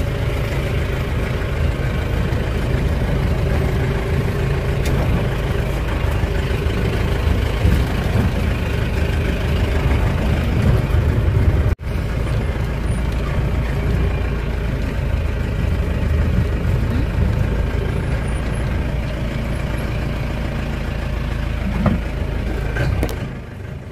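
Steady low rumble of a motor vehicle on the move, engine and road noise together, with a momentary break about halfway through.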